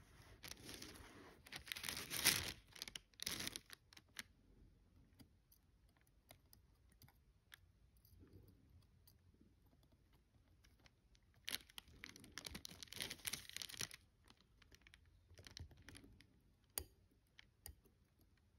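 Faint clicking and rustling of small-parts work at a watchmaker's bench, tweezers and tiny steel parts being handled while the setting lever is fitted into a wristwatch movement. The clicks come in two busy spells, one from about a second in and one from about eleven seconds in, with scattered single clicks between.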